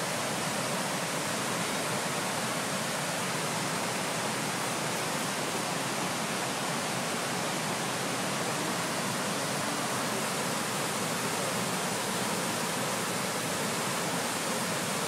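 Steady rushing hiss of river water pouring over a stepped weir.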